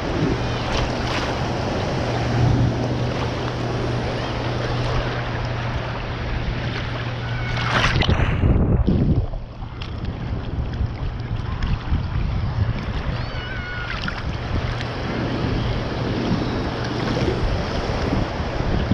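Shallow surf sloshing and splashing around a camera held just above the water while wading, with wind buffeting the microphone. A louder splash about eight seconds in, after which the sound briefly drops and dulls.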